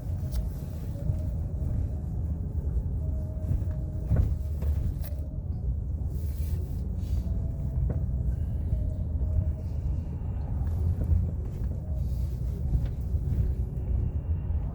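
Wind buffeting a phone microphone outdoors, a steady low rumble that flickers constantly.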